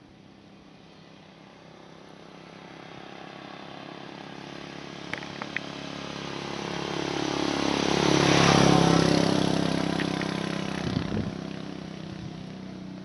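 A motor vehicle passing by: its engine and road noise grow slowly louder, peak about eight and a half seconds in, then fade. A few light clicks come around five seconds in and again near eleven seconds.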